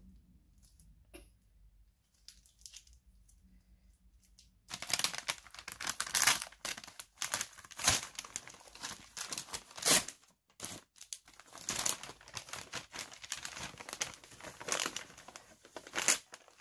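Brown paper gift bag and wrapping paper rustling and crinkling as they are handled and torn open, in loud irregular crackles. This starts about five seconds in, after a few quiet seconds with only faint clicks.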